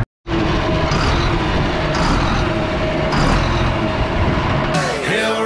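John Deere 4955 tractor's six-cylinder diesel engine running steadily close by, after a brief dropout at the very start.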